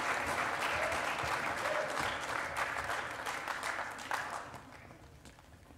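Audience applause, thinning out and dying away about four and a half seconds in.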